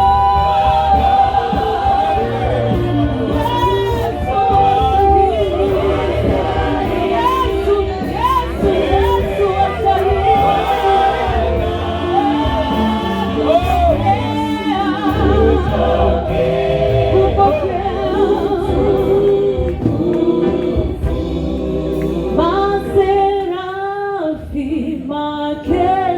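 Gospel worship song sung by a group of voices over music with a steady low bass.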